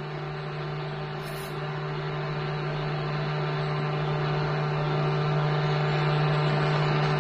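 Pulsed TIG welding arc on copper at 115 amps: a steady buzz over a hiss, slowly growing louder. The copper is slow to melt into a weld pool.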